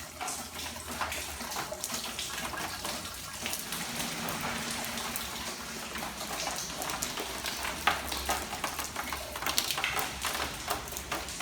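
Heavy rain coming down steadily, with many sharp drips and splashes of water, in a building with half its roof off.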